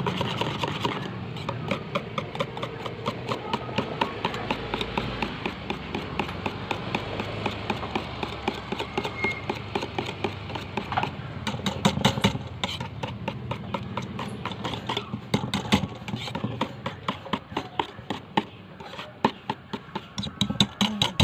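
Wire whisk beating a thick cream mixture in a stainless steel bowl, the wires clicking against the metal in a quick, even rhythm.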